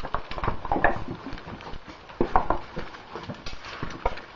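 Irregular clinks, knocks and scrapes of a caver's metal gear and of rock as the caver moves through a tight cave passage.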